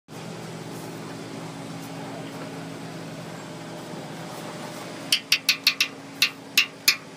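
A metal spoon knocking eight or nine times in quick, uneven succession against the rim of a cast-iron cauldron, knocking lard off the spoon. Before the knocks there is a steady low hum.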